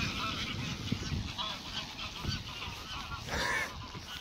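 A flock of wild geese honking as they take flight, many short calls overlapping, with a louder, lower burst a little over three seconds in.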